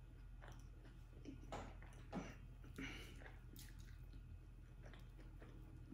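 Faint chewing of pepperoni pizza: soft, wet mouth sounds and a few quiet clicks, over a low steady hum.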